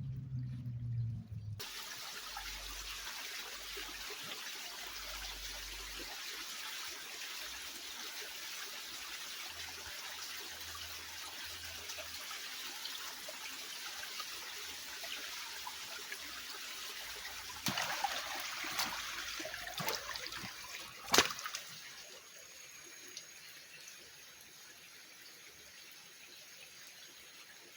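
A jungle river or stream running steadily over rocks, as a trickling, splashing rush. Between about 17 and 21 seconds in there are a few splashes and knocks, the loudest a single sharp knock. After that the water sounds quieter.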